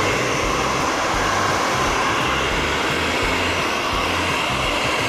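Handheld hot-air blower running steadily, a constant rush of air, used to heat a vinyl decal so it softens and conforms to a car's door panel.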